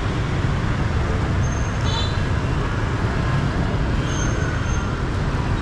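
City street traffic of motorbikes and cars, a steady low rumble. A few brief high-pitched chirps stand out over it, about two seconds in and again near the end.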